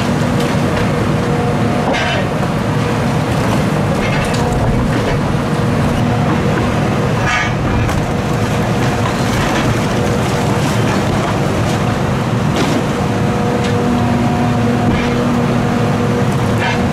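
Hitachi demolition excavator running steadily under load, its engine and hydraulics holding a steady whine, while its crusher jaws break into a concrete wall. A few sharp cracks of breaking concrete and falling debris come through, the clearest about seven seconds in.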